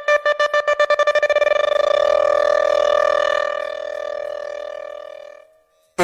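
Dancehall DJ horn sound effect: a single pitched horn note repeats in short blasts that speed up until they run together into one held note, which then fades away about five and a half seconds in.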